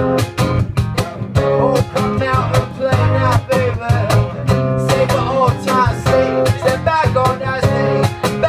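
Live band playing a pop song: a male singer over a strummed acoustic guitar and an electric bass, with a steady strummed rhythm.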